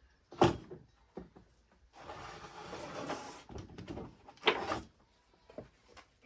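Two sharp knocks about four seconds apart, with a stretch of scraping noise between them.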